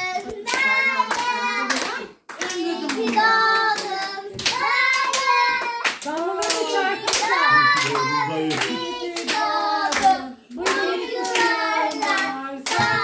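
A small group of people singing a birthday song together and clapping along in time.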